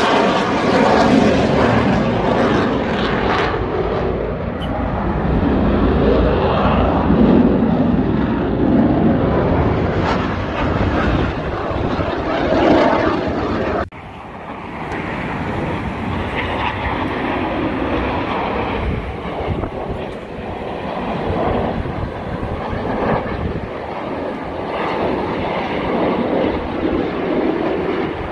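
Jet noise from Blue Angels F/A-18 Super Hornets flying over, a loud, steady rushing sound. It drops off abruptly about halfway through and then picks up again with another pass.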